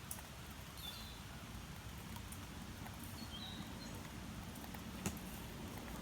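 Quiet outdoor ambience with a steady low rumble. A few sharp clicks stand out, the loudest about five seconds in, and two short high chirps come about one and three seconds in.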